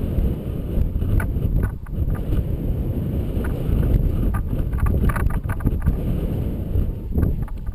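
Airflow buffeting the microphone of a camera towed on a line behind a paraglider in flight: a loud, steady, low rumble of wind noise, with scattered light knocks.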